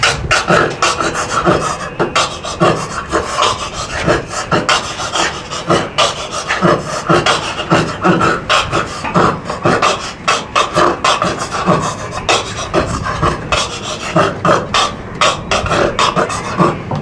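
Beatboxing: one person making a steady, fast run of drum-like beats with the mouth, hands cupped over it.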